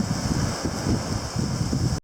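Wind buffeting the microphone in uneven gusts over the steady wash of the sea.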